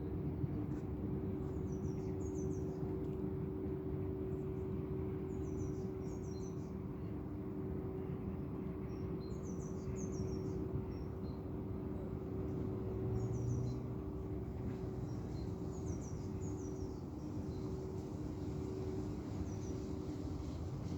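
Small birds chirping in short clusters of high, quick notes every few seconds, over a steady low hum and a constant background rumble.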